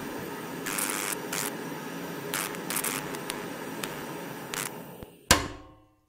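PT-1 pressurized petrol primus stove fitted with a silent burner bell, running with a steady soft hiss, with a few light scrapes and clicks. About five seconds in there is a sharp metallic click, the flame goes out and the hiss dies away.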